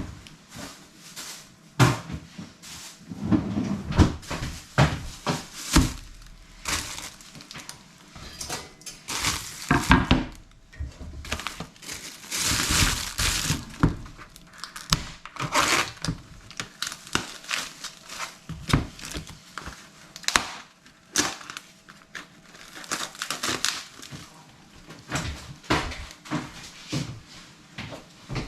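Kitchen work sounds while cooking: irregular knocks and clatter of dishes, pots and utensils, with rustling and crinkling, including a longer rustle about halfway through.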